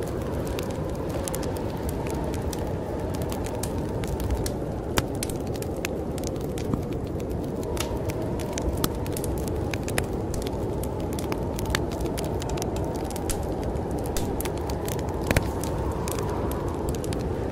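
Wood fire crackling in a fireplace, with scattered sharp pops, over a steady rush of snowstorm wind that gently rises and falls in pitch.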